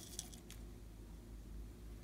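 Two faint ticks in the first half second as sprinkles are shaken from a small plastic bottle onto glossy slime, then only a low steady hum.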